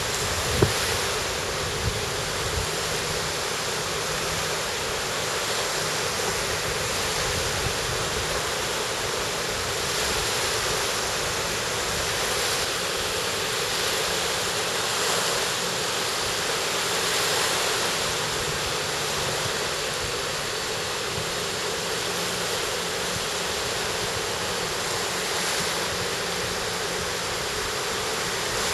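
Sea surf washing steadily onto the beach in shallow water, with a faint low hum underneath. A single sharp knock comes about half a second in.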